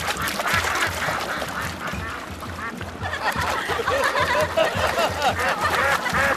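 Many ducks quacking, short calls overlapping one another, over a steady low drumbeat of about three beats a second.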